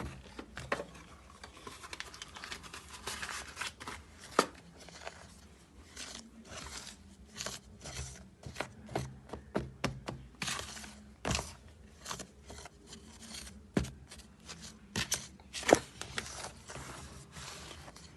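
A utensil stirring dry flour, sugar and baking powder in a mixing bowl: uneven scraping and clicking against the bowl, with a few sharper knocks.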